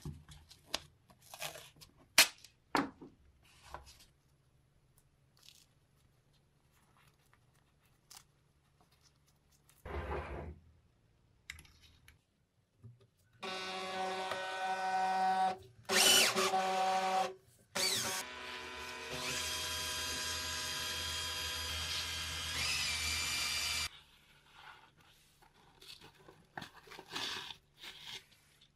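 Cordless drill motor whining as it spins a tape-wrapped metal rod, first in a few short bursts and then steadily for about five seconds. Before that, tape is torn and handled in short crackling strips; afterwards come small handling noises.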